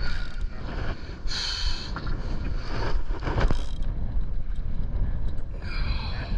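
Boat's outboard motor running, with wind buffeting the microphone and two brief hissing bursts, one about a second and a half in and one near the end.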